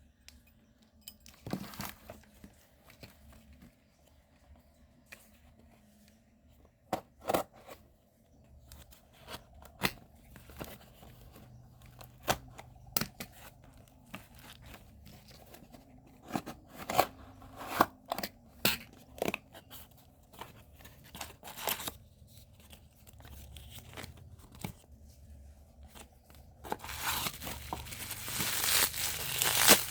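A parcel's packaging being handled and opened by hand: scattered sharp clicks, snips and short rustles, then near the end a longer, louder stretch of tearing and crinkling.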